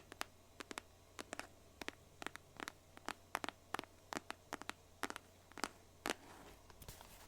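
Fingernails tapping on a box: an irregular series of sharp, separate taps, roughly three a second, with brief pauses between runs.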